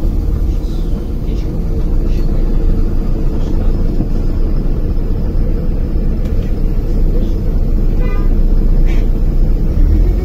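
LiAZ-5292.22 city bus driving, a steady low engine and road rumble heard from inside the cabin, with a brief high squeal about eight seconds in.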